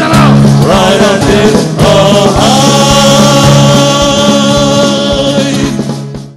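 Live band music: wordless vocal lines over a steady low sustained tone, then a long held chord from about two and a half seconds in that fades and cuts off abruptly just before the end.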